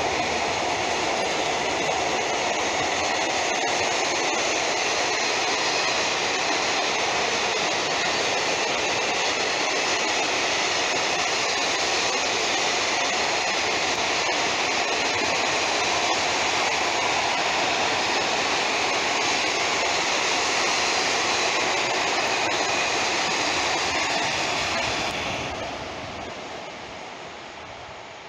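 A long freight train of high-sided open wagons rolling past on the rails, with a steady rumble and clatter of wheels. The sound drops off fairly suddenly about three seconds before the end as the last wagon goes by, then fades.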